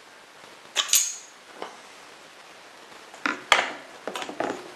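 Sharp metallic clicks and clacks from the parts of a Henry Big Boy .44 Magnum lever-action rifle being handled and worked apart. There are two near one second in, a lighter one shortly after, and a quick cluster of several from about three and a quarter to four and a half seconds.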